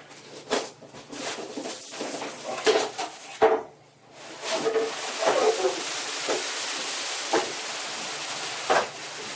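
Cardboard packaging being handled: several knocks and scrapes, then from about four seconds in a steady rustling hiss as the statue's box is slid out of its outer shipping box.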